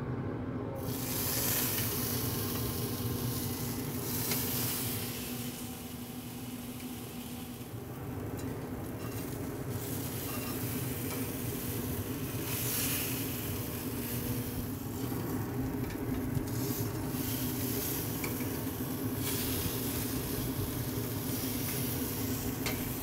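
Thick seasoned pork belly slices sizzling on hot grill grates. The sizzle swells louder several times as the slices are moved with tongs, over a steady low hum.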